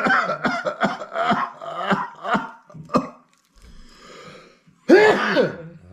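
A man grunting and groaning in short bursts while a rapid antigen test swab is worked into his nostril. About five seconds in, a breath in is followed by one loud, sudden vocal outburst.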